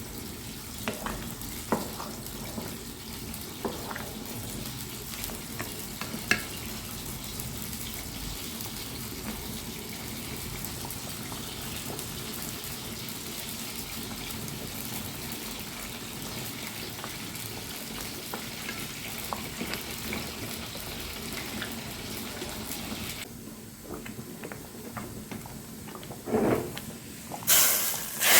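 Garlic frying in oil in a small pan, sizzling steadily, with occasional clicks of a spoon or utensil against the pan. The sizzle drops off about 23 seconds in, and a loud hiss starts just before the end.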